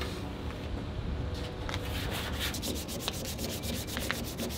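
Hand sanding of primer and guide coat on a Porsche 911's steel body panel: sandpaper rubbing over the paint in repeated strokes.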